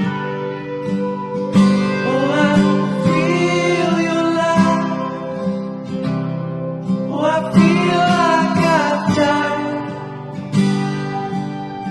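Background music: strummed acoustic guitar, with a sung melody coming in twice over it.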